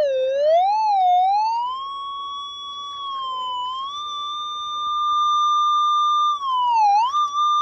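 Metal detector's target tone: one continuous electronic tone that wavers up and down for about two seconds, then holds steady and high. It dips briefly once near the end. The tone signals a buried target that rings up too high to be aluminum.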